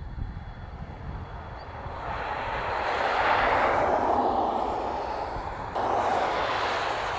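Range Rover Velar diesel driving past, its tyre and engine noise swelling to a peak about halfway through and then fading. A sudden change near the end, where another stretch of driving noise begins.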